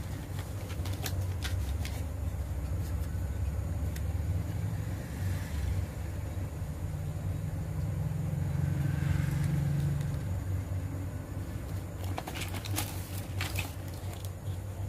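Light clicks and crinkles of hollow plastic toy animal figures and their clear plastic bag being handled and set down on a tile floor, in a few brief clusters about a second in and again near the end. Under them runs a steady low rumble that swells a little in the middle.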